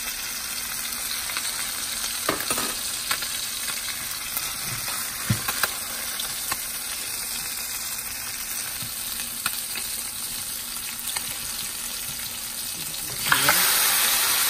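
Swai fillets frying in oil in a cast-iron skillet: a steady sizzle with scattered clicks of a fork and spatula against the pan. About 13 seconds in, the sizzle suddenly gets louder as still partly frozen fish meets the oil, its moisture spitting.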